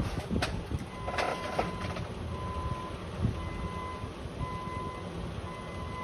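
Hyundai forklift's reversing alarm beeping about once a second as the forklift backs up, with a few knocks in the first couple of seconds.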